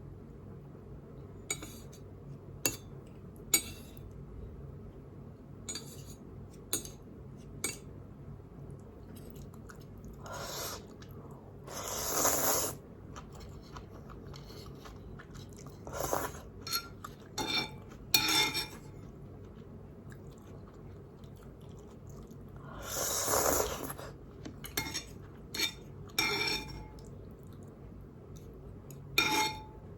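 Close-miked eating of instant noodles: chewing and wet mouth sounds, with scattered sharp clicks of cutlery against a bowl and several longer noisy bursts of about a second each.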